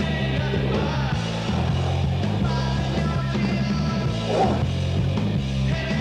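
Rock music soundtrack with a steady bass line.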